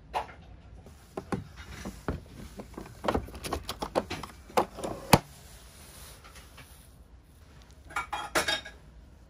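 Light clicks and clatter of disposable wooden chopsticks being taken from a chopstick box, with one sharp click about five seconds in. Near the end comes a short run of chopsticks knocking against a ceramic rice bowl.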